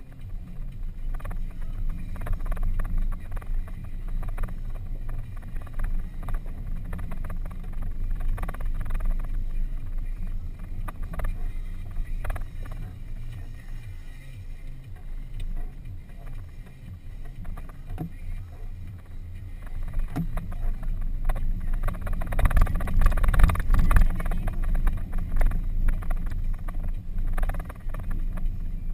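Off-road vehicle driving over a rough dirt track, heard from inside the cabin: a low engine rumble with frequent knocks and rattles from the bumps, growing louder and rougher about twenty seconds in.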